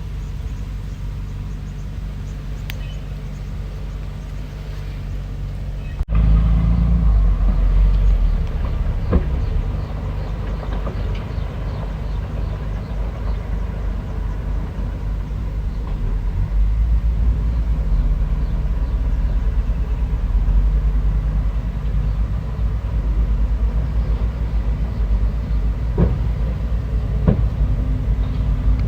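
Bulldozer's diesel engine running with a steady low drone. About six seconds in it abruptly becomes louder and deeper, and a few sharp metallic clanks stand out, two of them near the end.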